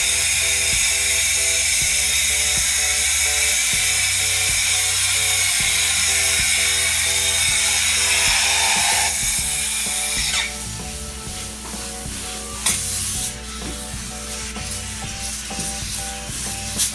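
Spray foam insulation gun hissing steadily as it sprays expanding foam into a wall cavity, stopping about ten seconds in. Background music with a repeating melody throughout.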